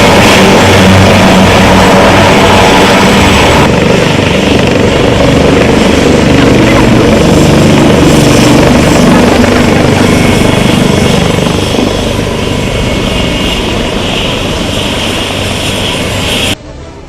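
Loud aircraft noise from a display flight, a dense steady din with a low drone. The sound changes abruptly a few seconds in and fades somewhat later on. It cuts off sharply near the end, where music begins.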